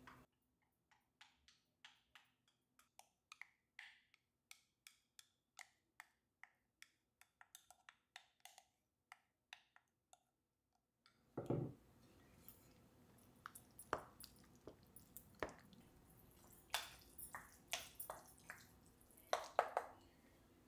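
A spoon mixing curd rice in a glass bowl: faint, even clicks and squishes about twice a second, then a heavier knock about halfway through, followed by irregular clinks of the spoon against the glass.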